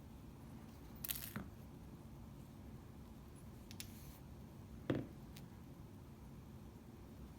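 Faint clicks and taps of small lock parts and tools being handled while the lock is stripped down: a short scraping click about a second in and a sharper knock just before five seconds.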